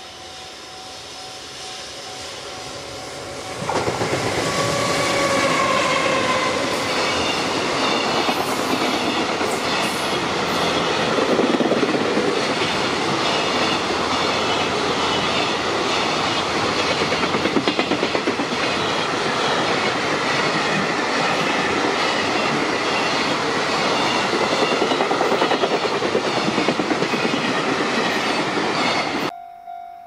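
Electric-locomotive-hauled container freight train passing close by. It grows louder on approach, then a falling whine as the locomotive goes past, followed by a steady loud rumble with rhythmic clickety-clack of the wagon wheels. It cuts off abruptly near the end.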